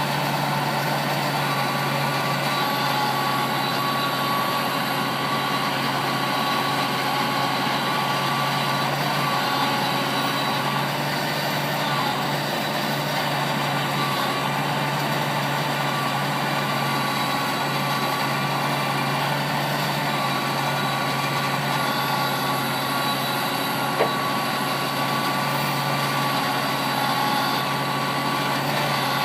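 New Holland TV-140 bidirectional tractor's diesel engine running steadily at a constant pitch, with a single sharp click near the end.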